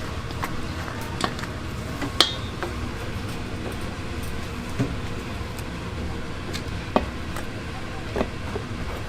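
Food-stall kitchen work over a steady background hum: scattered clicks and knocks of utensils, with one sharp ringing clink about two seconds in.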